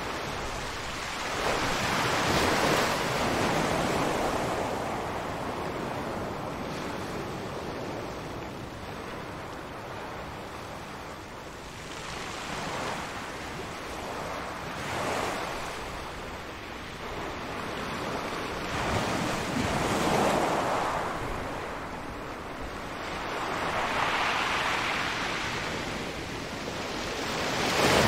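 Sea waves breaking and washing in, swelling and fading in irregular surges every few seconds.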